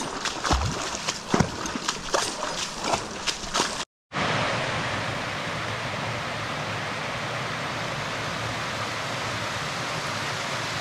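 Stream water splashing and trickling in irregular little spurts. A sudden break about four seconds in is followed by the steady, even rush of a creek cascading down shallow stepped sandstone ledges.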